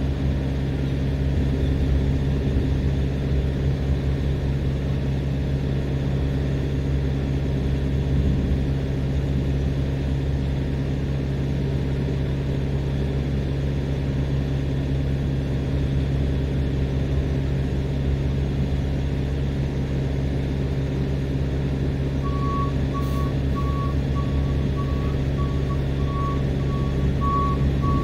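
Steady low drone of a parked refrigerated tractor-trailer's diesel running. Near the end a backup alarm starts beeping, about two beeps a second at one pitch.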